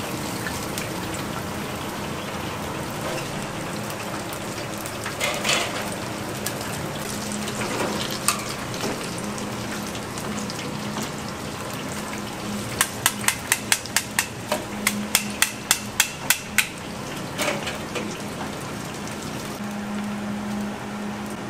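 Street-food kitchen sounds of tteokbokki cooking: a steady frying hiss with a low hum, scattered knocks, and partway through a quick run of about fifteen sharp knocks at about four a second.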